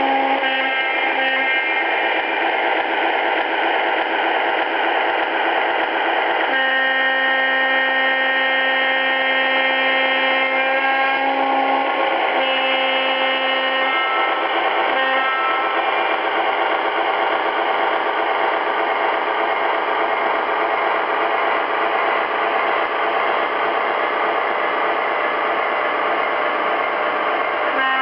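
Lionel O-scale RS-11 diesel locomotive's sound system blowing its horn: a long blast about six seconds in, then a shorter one and a brief toot, with another starting at the very end. Under it the train runs steadily along the three-rail track.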